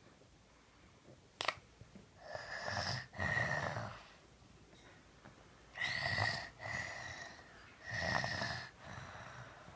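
A three-year-old child snoring in sleep: three rounds of loud, rasping breaths, each in two parts, after a short click. The snoring comes from enlarged adenoids and tonsils narrowing the airway.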